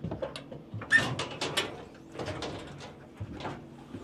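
Compartment door of a truck's enclosed headache rack being unlatched and swung open: a string of clanks and rattles, the loudest about a second in.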